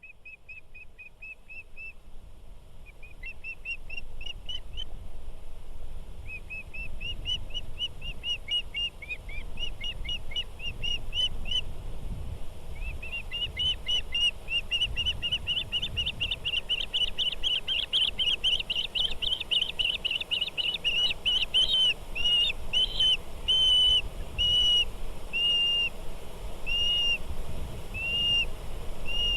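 A songbird singing: fast trills of high chirps that grow louder, then slower single whistled notes about one a second near the end, over a steady low rumble.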